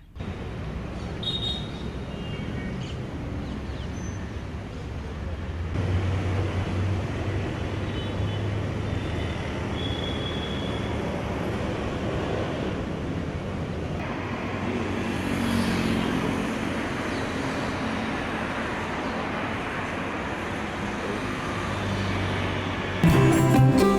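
Steady road traffic noise, with music coming in near the end.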